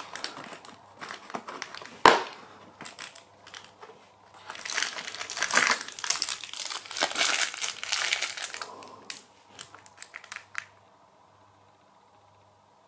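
Cardboard door of an advent calendar being pushed open, with sharp clicks and a snap about two seconds in. Then a small plastic sweet packet crinkles as it is pulled out and handled. The rustling dies away about ten seconds in.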